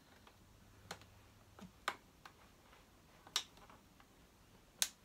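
Several sharp plastic clicks and taps at irregular intervals of about a second, as the hooked plastic filter cover on a Dyson DC07 upright vacuum's motor housing is worked loose by hand.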